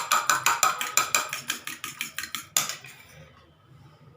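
An egg being beaten with a metal utensil in a bowl: quick, even clinking strokes, about seven a second, that stop with one louder clink about two and a half seconds in.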